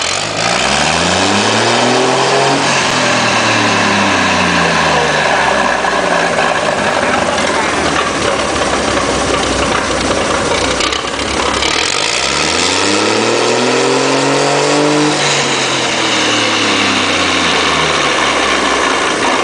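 Hino K13C inline-six turbo engine, converted from diesel to run on CNG with spark ignition, revved up and let fall back to idle twice: once at the start and again past the middle, each rise and fall taking about five seconds.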